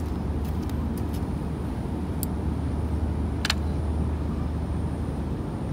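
Steady low outdoor background rumble, with a couple of sharp clicks, the louder one about three and a half seconds in.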